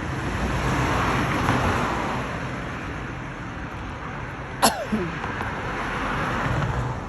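Road traffic passing, swelling and fading twice as cars go by. About two-thirds of the way in comes one sharp cough, the loudest sound, ending in a short falling voiced tail.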